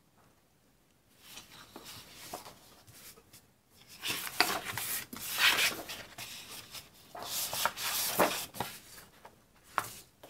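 Sheets of patterned scrapbook paper sliding and rustling against each other and the wooden tabletop as they are handled, in several separate swishes.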